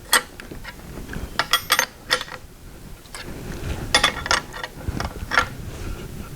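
Scattered sharp clicks and light metallic clinks, a few at a time, from hands handling the newly mounted turn signal light and its hardware on the tractor.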